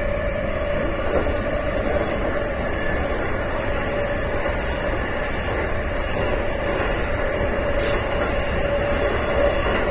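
A JR East E233-5000 series electric train running through a tunnel: a steady rumble of wheels and running gear, with a steady whine held at one pitch over it. There is a single short click about eight seconds in.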